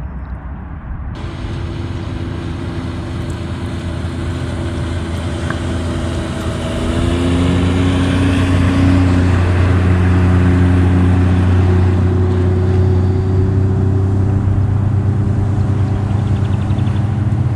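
Jet ski engine running as it passes across the water, its pitch gliding up and down. It comes in about a second in and grows louder, staying loud from about halfway on.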